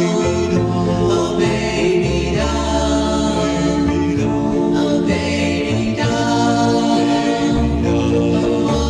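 Early-1960s doo-wop record: a vocal group singing sustained close harmonies over a bass line.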